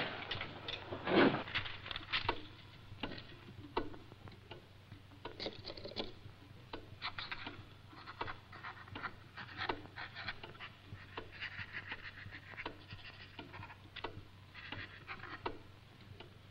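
Dip pen nib scratching across paper in short, irregular strokes as a letter is written, with one louder knock about a second in.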